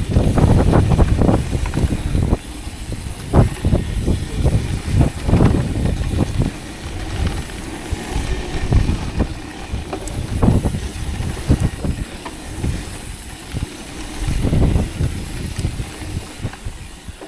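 Mountain bike riding fast down a damp dirt trail: tyres rolling on the dirt, with repeated knocks and rattles of the bike over bumps. Wind rumble on the microphone, heaviest in the first couple of seconds.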